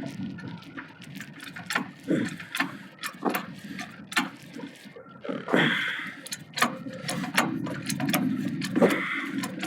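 A car jack being worked to lift a car, with irregular metal clicks and ratcheting and a heavier stroke about every three seconds.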